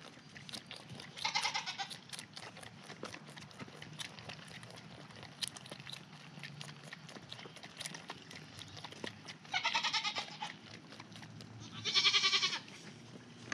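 Bottle-baby goat kids bleating three times: a short wavering bleat about a second in, another near ten seconds, and the loudest near the end. Small clicks run throughout as a kid sucks at the bottle nipple.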